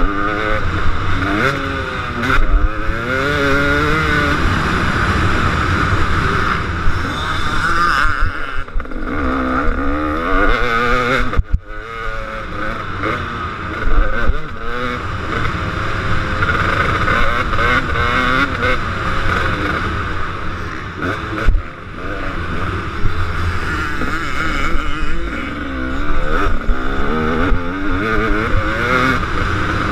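KTM 250 SX two-stroke motocross bike engine racing, its pitch rising and falling again and again as the throttle opens and closes, over a steady rush of wind. The engine sound cuts out briefly once, about eleven seconds in.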